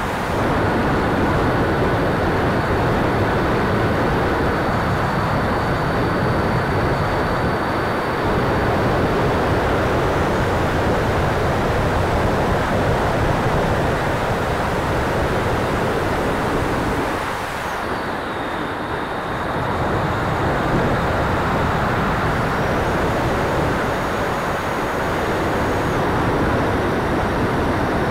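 Airflow rush and the whine of the 80 mm electric ducted fan, picked up by a camera mounted on an E-flite F-16 RC jet in flight. It is a steady, loud rushing with thin high whine tones over it; about two-thirds of the way through the level dips briefly and the high tone drops in pitch.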